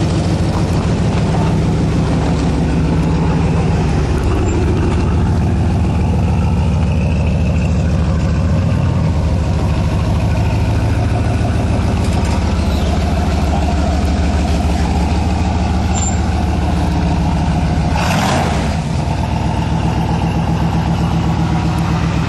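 1989 Chevrolet pickup's engine running steadily close to the exhaust, a low even note. Near the end the truck pulls away and the pitch of the engine shifts.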